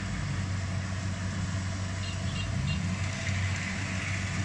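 Rice combine harvester's engine running steadily while it cuts the paddy, a low even hum. Three faint short high chirps sound about two seconds in.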